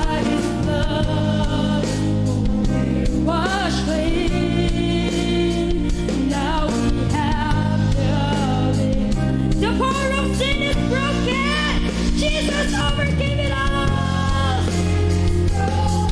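Gospel praise and worship song: voices singing a melody over a band, with sustained low bass notes and a steady beat.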